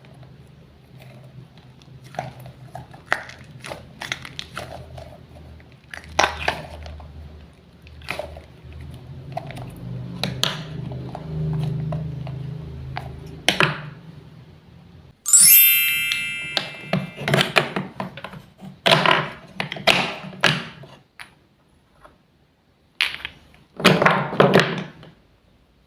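Wooden toy fruits and vegetables being cut apart with a toy knife on a board: irregular wooden taps, clicks and knocks. A bright ringing ding lasts about a second and a half midway through.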